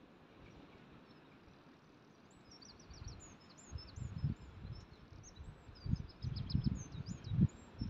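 Small birds giving many quick high chirps over a steady outdoor hiss, with irregular low rumbling gusts of wind buffeting the microphone from about four seconds in, loudest near the end.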